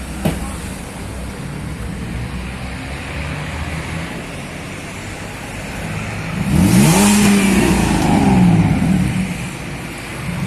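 Chevrolet Omega Fittipaldi 3.6 V6 idling through a modified exhaust with an H-pipe crossover and two large turbo-style mufflers. About six and a half seconds in, it is revved once, held high for about two seconds, and drops back to idle.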